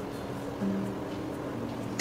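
Instrumental background music: soft, held notes changing every fraction of a second.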